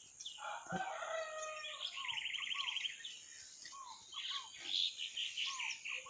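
Several caged songbirds singing at once, among them a red-cowled cardinal (galo-de-campina): a rapid trill about two seconds in and short down-slurred whistled notes repeated throughout.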